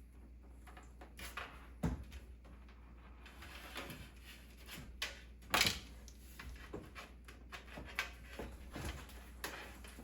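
Scattered clicks and knocks of power cables and plastic connectors being handled and fitted inside a PC case, with one sharper knock about two seconds in and a louder one just past halfway.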